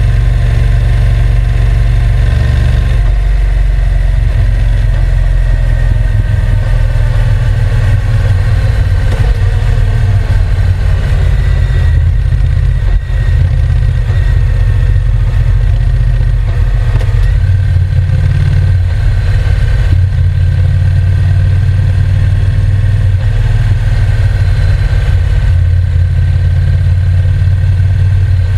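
Honda NC750X's parallel-twin engine running steadily, with a heavy low rumble and an engine note that drifts slowly up and down.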